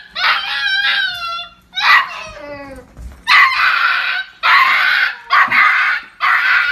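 Husky screaming and whining: high cries that slide downward in pitch over the first few seconds, then several long, harsh screams.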